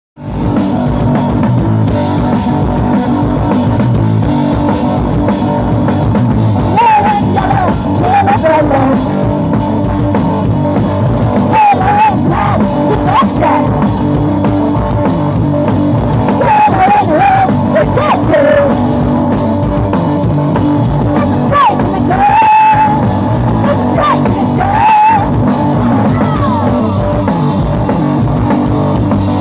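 Live punk blues rock from a guitar-and-drums duo: electric guitar and drum kit playing, with a voice singing over them from about seven seconds in.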